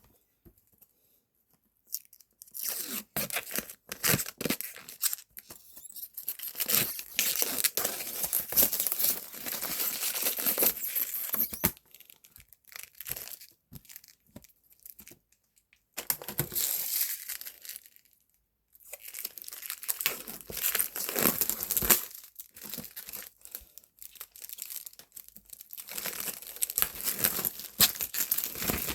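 Protective plastic film being peeled off acrylic panels, a crackling, tearing sound in long pulls with short pauses between them, starting about two seconds in.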